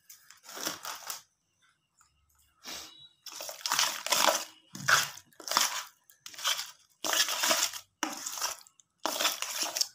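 A spoon stirring and mashing boiled potato chaat in a stainless steel bowl: a series of scraping, crunching strokes, about one or two a second, with a short pause a little over a second in.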